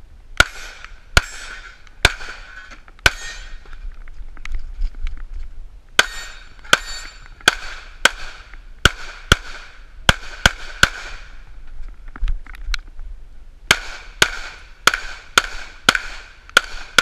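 Semi-automatic pistol fired in rapid strings of shots, about twenty in all, with pauses of a second or two between strings as the shooter moves between shooting positions. Each shot has a short echoing tail.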